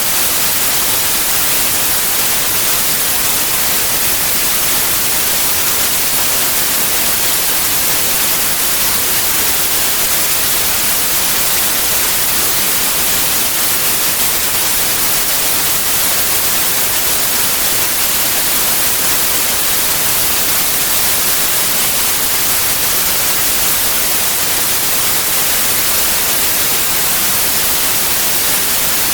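Steady white noise: an even, bright hiss with no tone or rhythm in it.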